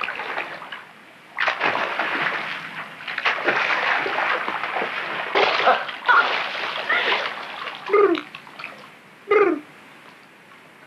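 Water splashing and sloshing as two people move about chest-deep in a lake. Near the end come two short falling vocal cries, and then it goes quiet.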